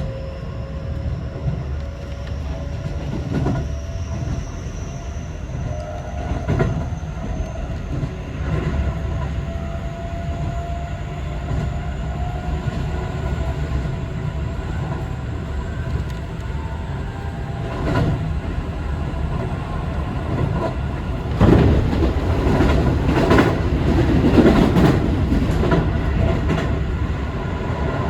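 Keio Liner electric train running, heard from inside a passenger car: a steady rumble with a motor whine that climbs in pitch over the first several seconds as the train gathers speed. Wheels click over rail joints now and then, with a louder, quicker run of clacks about three-quarters of the way through.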